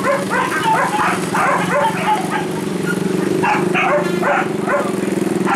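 Hunting dogs barking and yipping in quick, uneven short bursts. A motorcycle engine idles steadily underneath.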